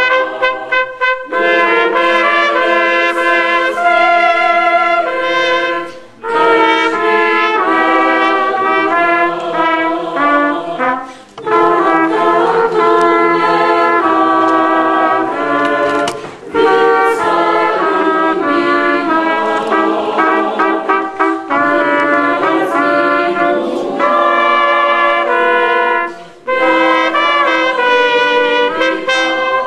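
Two trumpets play a hymn melody together with a church choir singing. The music goes in phrases, with a few brief pauses between them.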